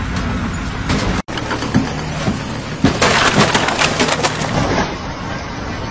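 Wooden planks and scaffold poles clattering and cracking, with a dense run of sharp cracks and knocks starting about three seconds in.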